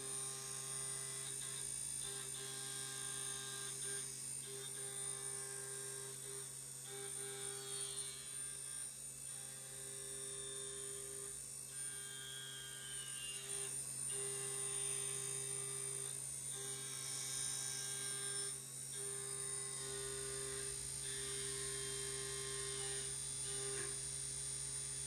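CNC mill rough-facing 6061 aluminium with an end mill at 8000 rpm and 200 inches per minute. A steady machine hum, with a cutting tone that drops out and comes back every second or two as the cutter passes back and forth across the stock.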